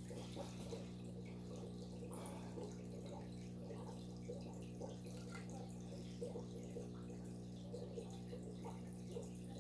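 Faint steady electric hum of running aquarium equipment, with small bubbling and dripping water sounds scattered through it.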